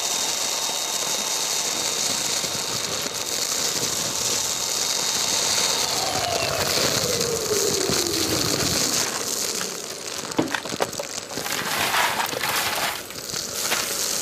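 Kärcher wet and dry vacuum running with its wide bulk waste hose, sucking up loose debris. The motor's steady whine sinks in pitch about halfway through, and bits of debris clatter and crackle through the hose near the end.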